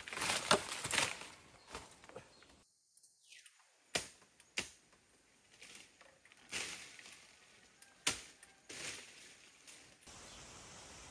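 Undergrowth and bamboo being hacked and trampled: rustling and knocks at first, then a few sharp single knocks a second or two apart. Near the end comes a steady faint outdoor hiss.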